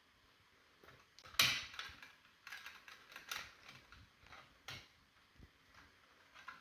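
Plastic wire nut (marrette) being twisted onto spliced copper wires by hand, giving irregular clicks and scratchy scrapes, the loudest about a second and a half in.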